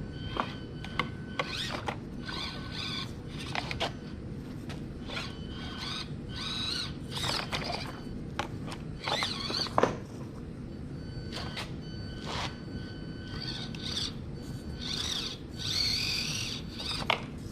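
Axial SCX24 micro rock crawler's small electric motor and gears whining in many short bursts, rising and falling as it is throttled on and off while crawling.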